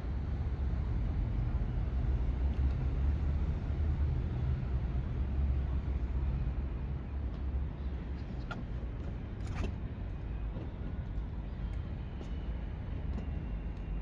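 Steady low engine rumble with a faint hum, easing slightly after the middle, with a couple of short high chirps or clicks a little past the middle.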